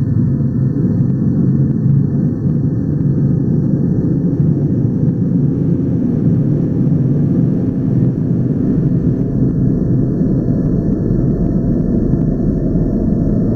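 Designed 'space tunnel' sound effect: a steady, deep rumble without distinct tones or breaks.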